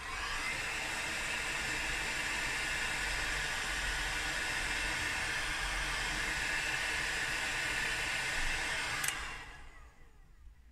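Electric hot air gun blowing steadily for about nine seconds while it shrinks black heat-shrink tubing down over a cable terminal. It switches off with a click about nine seconds in, and the noise fades as the fan spins down.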